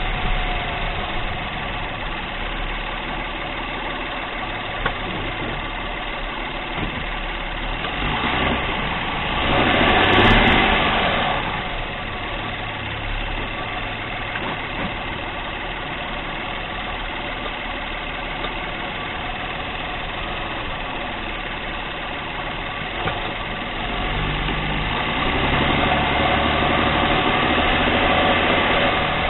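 A 2022 Acura MDX running at low speed, heard through a small camera microphone mounted by the front wheel: a steady engine and drivetrain hum. There is a single sharp click about five seconds in, of the kind of click-clunk the owner is tracing to a front CV axle. Broader noise swells up around ten seconds in and again near the end.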